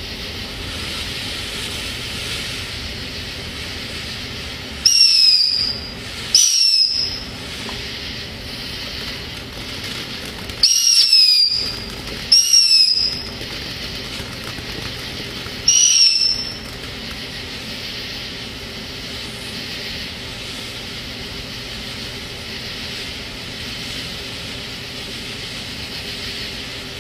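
Killer Bees 200-gram firework fountain burning with a steady hiss, broken by five loud, short whistles (two pairs, then a single), each dropping slightly in pitch.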